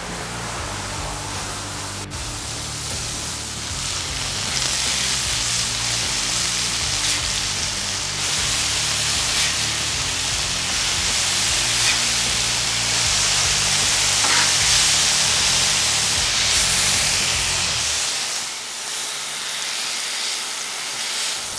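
Beef smash-burger patties and onions sizzling on a flat-top griddle, the sizzle growing louder as the patties are flipped. Background music plays under it and drops out near the end.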